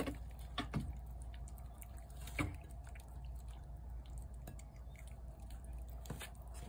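A cat eating shredded chicken from a plate: a few soft, wet clicks and smacks of chewing, spaced out over a steady low background hum.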